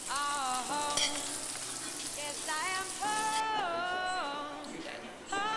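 A singing voice holding long notes and sliding between them, over a steady hiss that cuts off about three and a half seconds in.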